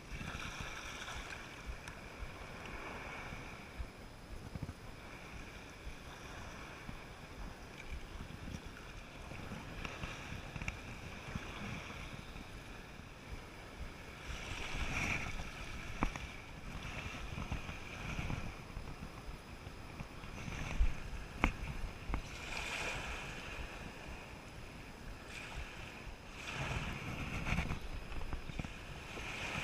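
Surf washing on a beach, with wind buffeting the microphone and a few sharp clicks.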